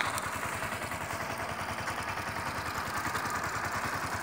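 Yamaha Factor motorcycle's single-cylinder engine running steadily at low revs while the bike rolls slowly, an even, rapid throb with no revving.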